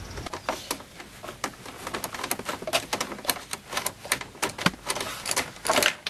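Screwdriver turning a screw out of the plastic centre-console trim: a run of quick, irregular small clicks and scrapes, a little louder near the end.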